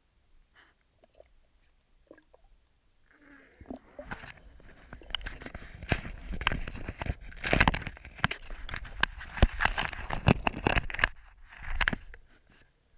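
GoPro Hero 4 Silver in its waterproof housing, heard underwater as it is dragged and tumbled over the sandy creek bed by a tangled fishing line: a dense jumble of crackles, scrapes and knocks. The knocks begin about three seconds in and stop shortly before the end.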